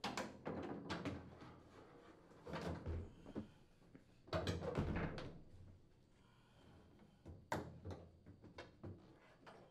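Washer-dryer laundry center's plastic outer tub assembly knocking and scraping against the metal cabinet frame as it is slid out through the bottom of the cabinet. Irregular bumps and scrapes, loudest about halfway through.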